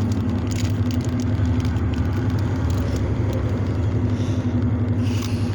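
Steady low hum of a car engine running, heard from inside the car with a window open.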